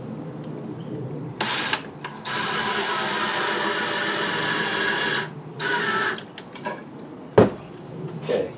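Ridgid cordless drill driving a pocket-hole screw into plywood: a short burst, then a steady run of about three seconds, then another short burst. A single sharp knock follows about seven and a half seconds in.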